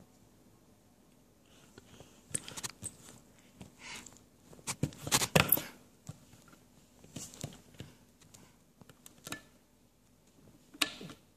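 A scattered run of sharp clicks and knocks with rustling handling noise, densest and loudest about five seconds in, with a single sharp knock near the end.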